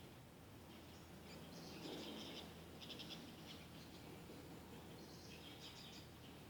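Faint bird chirps and short trills, three brief bouts, over a low steady room hum.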